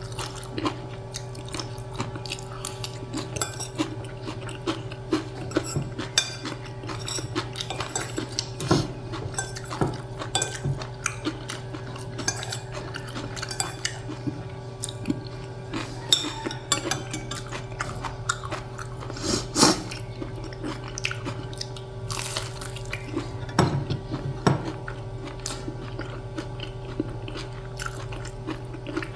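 A person eating: cutlery clicking and scraping against a plate at irregular moments, with chewing and biting between, over a steady low hum.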